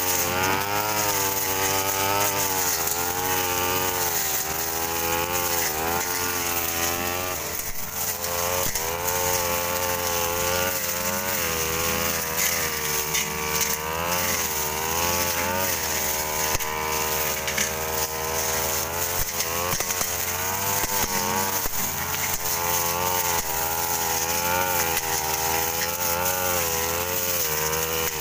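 Backpack brush cutter engine running, its pitch rising and falling every second or two as the cutting head swings through grass and undergrowth and takes load. A second brush cutter runs steadily underneath.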